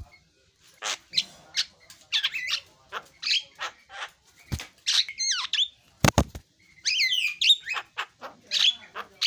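Javan myna singing a busy chattering series of short whistles, harsh notes and quick up-and-down glides, with a brief rattle about six seconds in.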